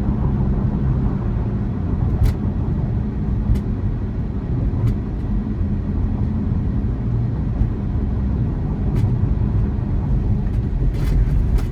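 Tyre and road noise inside the cabin of a moving electric car, a steady low rumble with no engine sound, and a few scattered light ticks.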